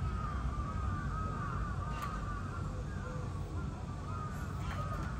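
Crows cawing over and over in the background, over a steady low rumble, with a faint click about two seconds in.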